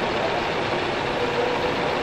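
Steady machine drone mixed with the background din of a large exhibition hall.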